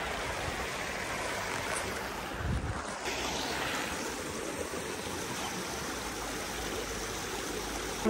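A river stream running steadily: an even, unbroken rush of flowing water.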